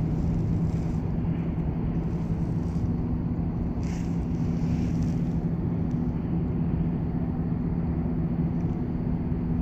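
A steady low hum and rumble from an unseen motor or traffic, with a few soft swishes of small waves against a kayak hull rocking on the chop.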